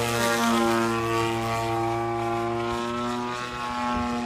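DLE55 single-cylinder two-stroke petrol engine of an MX-2 RC model plane, with its propeller, running at a steady high throttle with an even, unchanging pitch, getting a little quieter near the end.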